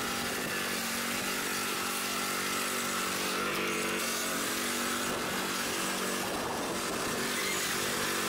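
Poulan Pro riding lawn mower engine running at a steady speed as the mower drives across grass.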